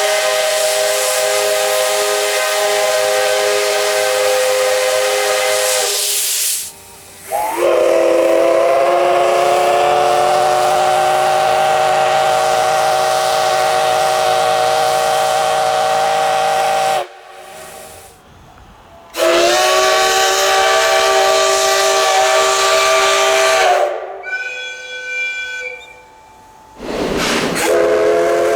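Steam locomotive whistles, several long blasts one after another, each a chord of several steady tones over a steam hiss. One blast opens with a quick upward slide in pitch and holds for about ten seconds. Shorter blasts follow after breaks.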